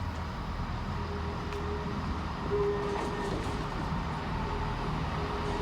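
Class 158 diesel multiple unit pulling into the platform with a steady low rumble, and a thin steady whine that comes and goes from about a second in.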